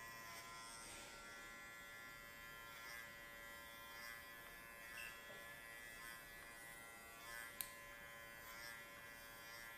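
Electric dog grooming clipper with a guard comb running steadily as it trims the fur on a small dog's head: a faint, even motor buzz. One short click comes late on.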